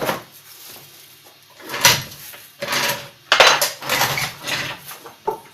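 Metal tools and suspension parts clanking and rattling in irregular knocks while a front strut is taken off a car.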